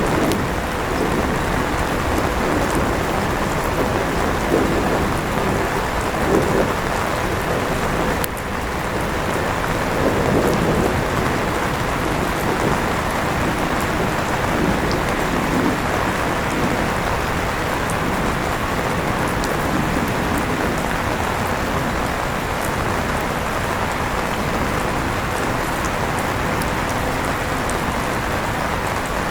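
Steady rain falling, with an electric fan running under it and a faint steady hum.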